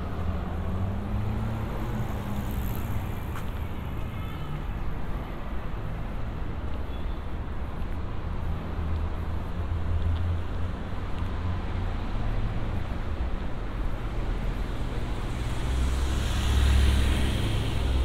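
Road traffic on a city street: a steady low rumble of cars. The loudest moment is a vehicle driving past with tyre hiss near the end.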